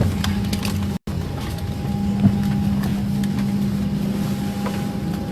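Airliner cabin noise: a steady engine and air-system drone with a low hum and a thin higher tone. The sound cuts out for an instant about a second in.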